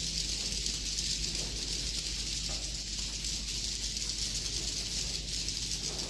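Many swiftlets twittering and clicking together in a steady, dense high-pitched chatter.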